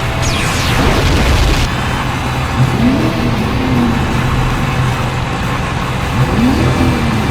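Cartoon soundtrack: a steady vehicle-like hum under background music, with a falling whistle at the start and two short rising swoops about four seconds apart.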